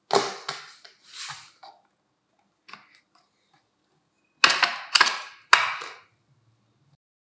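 Sharp plastic clicks and snaps as the point-adjustment knob is pressed onto the front dial of a National KP-150S electric pencil sharpener. A quick run of clicks in the first second, then three loud snaps about half a second apart a little over four seconds in.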